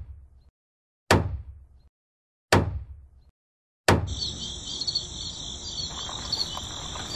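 Three heavy hammer blows about a second and a half apart, each dying away in under a second, as a sledgehammer strikes a wheel. Then, about four seconds in, a steady chorus of crickets chirping starts.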